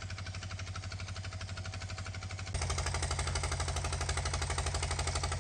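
Vehicle engine running with a fast, even pulsing beat and a strong low hum, turning suddenly louder about two and a half seconds in.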